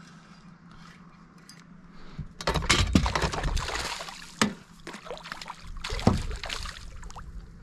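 Hooked smallmouth bass thrashing and splashing at the water's surface beside the boat. The splashing starts a little over two seconds in, with sharp splashes about four and a half and six seconds in.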